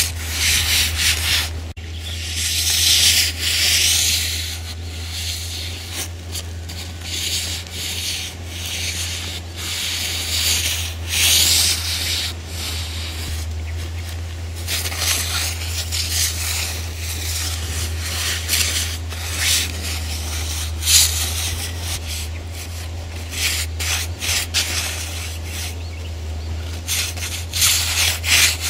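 Paintbrush and hands scrubbing and rubbing paint into a canvas laid on the ground: irregular scratchy strokes that come and go, over a steady low hum.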